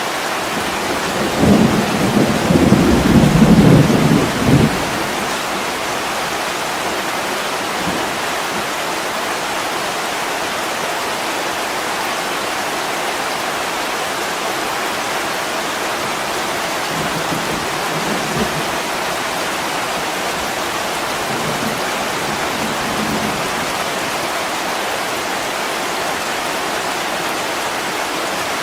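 Steady heavy rain hissing on a window, with a low rumble of thunder rolling for about three seconds near the start and fainter rumbles later on.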